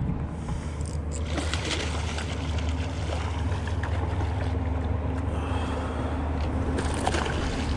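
A hooked fish thrashing at the surface of shallow water, splashing in bursts: first about a second in, then again near the end. A steady low rumble runs underneath.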